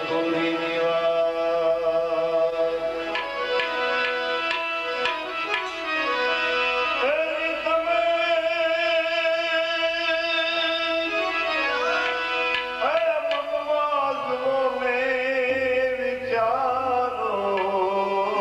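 Gujarati devotional bhajan music: tabla playing under a melody of long held notes that slide up into pitch.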